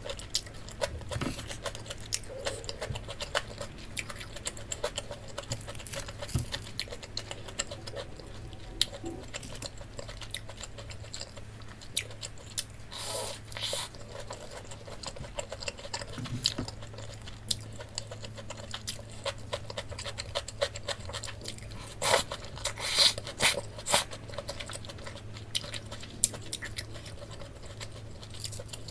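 Close-up eating sounds of pork cutlet: crunchy chewing and small clicks of utensils, with louder bursts of crunching twice, over a steady low hum.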